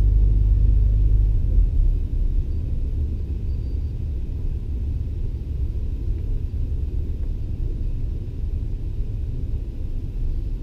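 Low running rumble of an EP20 electric locomotive heard inside its cab as it runs along the track on the approach to a station. The deepest part of the drone eases off about a second and a half in, then the rumble holds steady.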